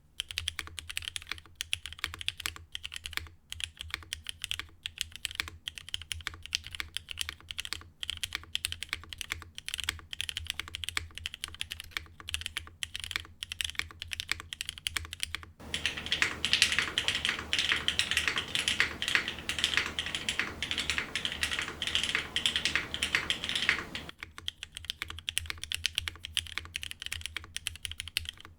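Continuous typing on a mechanical keyboard with lubed Cherry MX Black Hyperglide linear switches on an ABS plate with GMK keycaps: rapid, clacky keystrokes. For about eight seconds past the middle it is picked up by the camera's built-in mic, brighter and with more hiss, then goes back to the cleaner condenser mic.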